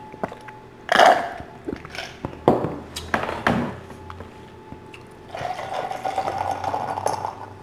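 Close-miked mukbang eating sounds: several sharp crunchy bites and chewing of crusty baked bread. A longer, steadier stretch of eating noise lasts about two seconds, starting about five seconds in.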